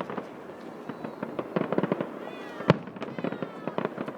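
Fireworks display: aerial shells bursting with dense crackling, and one loud bang about two-thirds of the way through.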